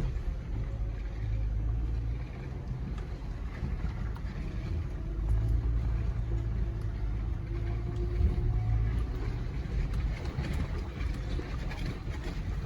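Jeep Gladiator Rubicon's 3.6 Pentastar V6 running at low revs as the truck crawls over an off-road trail, a steady low rumble heard from inside the cab, with scattered light knocks.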